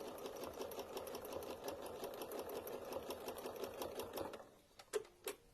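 Domestic sewing machine stitching at a fast, even rate, its needle clicking in a steady run. It stops about four and a half seconds in, followed by two sharp single clicks near the end.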